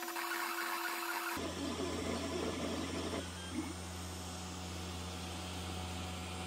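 Snapmaker 2.0 3D printer running a print: its motors whir with a steady tone. About a second and a half in, the sound changes abruptly to a lower steady hum with busier movement noise, which settles down about halfway through.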